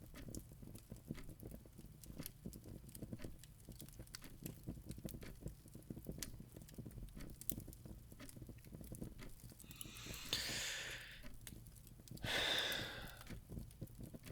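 Two heavy, sighing exhalations from a man, about ten and twelve seconds in, over a faint continuous crackling background.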